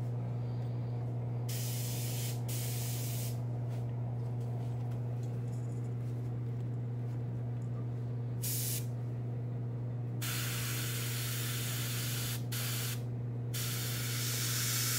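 Airbrush spraying sepia paint in short bursts of hiss, a few brief ones early and longer, closer ones in the second half. A steady low hum runs underneath, the air compressor that feeds the airbrush.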